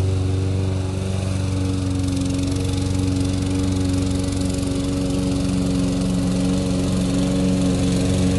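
Walk-behind gas lawn mower's single-cylinder engine running steadily under way, with a slight dip in level about a second in.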